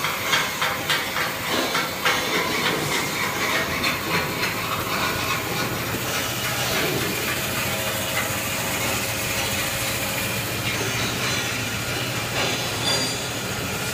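Manual band saw tissue paper cutting machine running steadily, its blade slicing through a toilet paper log. A run of quick, regular clicks, about three a second, sounds over the machine's hum for the first few seconds.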